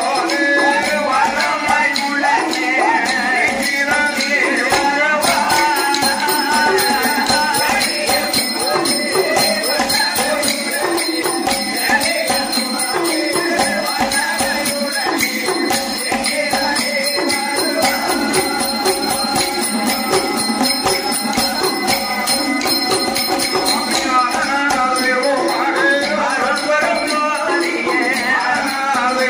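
Tamil villu pattu (bow song) music: the bells on the bow jingle in a steady rhythm with percussion, and voices sing near the start and again toward the end.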